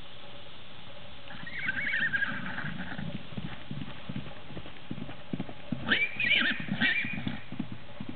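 Hoofbeats of a young Gypsy Vanner filly cantering on grass, with a horse whinnying twice, a wavering call about one and a half seconds in and a louder one about six seconds in.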